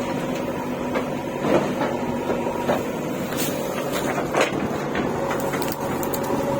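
Engine of a backhoe loader running steadily with a constant hum, while several sharp knocks and clatters sound over it at irregular intervals.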